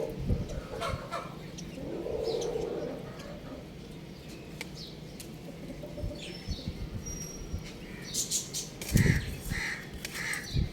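Young rooster chirping, with three short calls close together near the end, among scattered knocks and taps.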